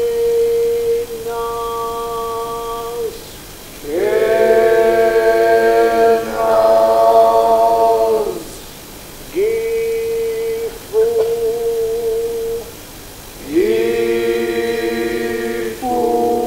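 Slow chant-like singing: voices hold long, steady notes of two to four seconds each, with short breaks between them and a second voice overlapping at times.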